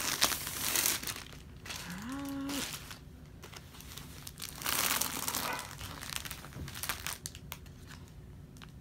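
Clear plastic wrapping crinkling loudly in two bursts, about a second each, as a rolled diamond-painting canvas is unwrapped, with scattered smaller rustles and clicks afterwards. Between the bursts, a voice gives a short rising hum.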